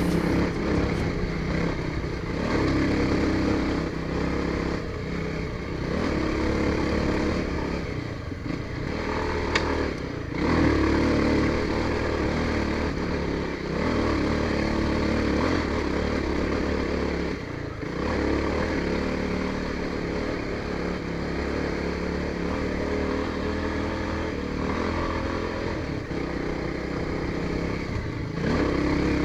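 Voge 300 Rally's single-cylinder engine running while being ridden, the throttle rising and falling, with short dips in engine sound a few times.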